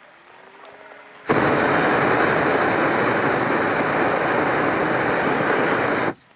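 Hot air balloon's propane burner firing in one long blast of about five seconds. A loud, steady rush starts abruptly about a second in and cuts off abruptly just before the end.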